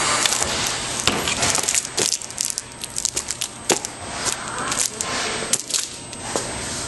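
PVC shrink film on a book crackling and crinkling, with many irregular sharp ticks. A heat gun's blowing hiss lies under it, louder for the first two seconds.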